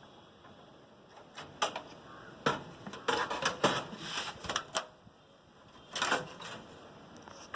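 A string of light clicks and knocks, then one more a second later: a motherboard being handled and set down into a metal PC case.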